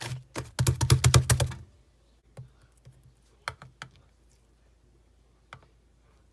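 Rapid keyboard typing clicks for about a second and a half, then a few scattered single clicks.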